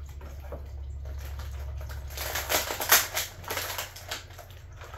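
Action-figure packaging of cardboard and plastic being handled and pulled apart: a run of crackles and clicks, densest and loudest about two to four seconds in, over a low hum that fades about halfway through.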